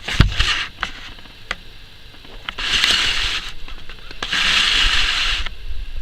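.177 air rifle firing once with a sharp crack just after the start, followed by a few light clicks. Two stretches of hiss follow, each about a second long.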